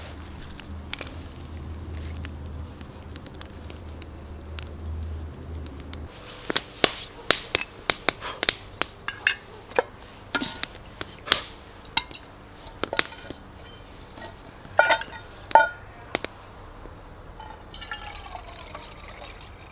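A low steady drone that stops about six seconds in, followed by irregular sharp cracks and clicks, some of them loud.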